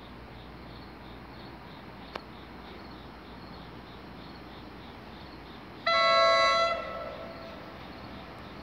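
An approaching commuter train's Nathan K5LA five-chime air horn sounds one blast of about a second, several notes together; the uploader says this horn sounded bad. Crickets chirp steadily throughout, and there is a single sharp click a couple of seconds in.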